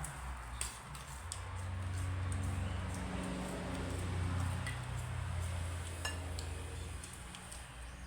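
Spoon and dishes clinking a few times during a meal, over a low steady hum.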